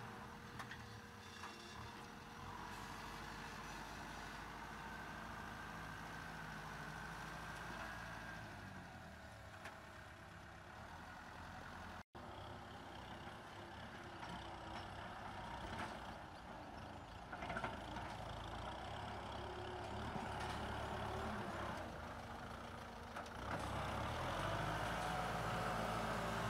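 Kubota M6040SU tractor's diesel engine running steadily while plowing. The sound drops out for a moment about halfway and gets louder near the end.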